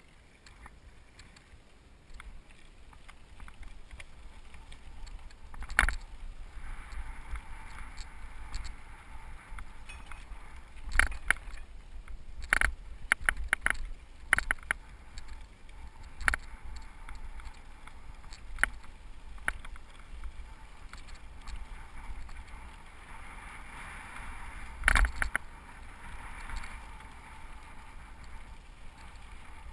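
Cyclocross bike rolling fast down a bumpy dirt singletrack: a steady rumble and hiss of the tyres on the trail, broken by sharp knocks and rattles as the bike jolts over bumps, with clusters of knocks about six seconds in, around the middle and near the end.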